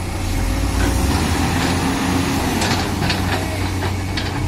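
Heavy diesel engine of earthmoving machinery running with a steady low drone, with a few short clanks scattered through.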